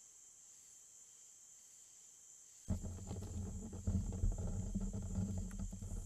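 Crickets trilling steadily at night, then about two-thirds of the way through a sudden switch to loud, close rumbling, scuffling and knocking from raccoons right at the trail camera, one pawing at it.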